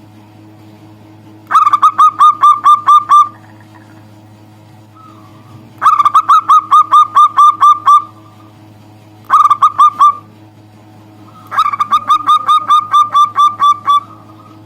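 Local zebra dove cooing its staccato song in four bouts of quick repeated notes, about five or six a second. A steady low hum runs underneath.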